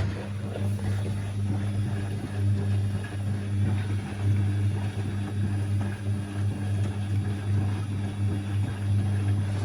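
Siemens Siwamat XB1260 front-loading washing machine running in the first rinse, giving off a steady low electrical hum over a wash of water noise.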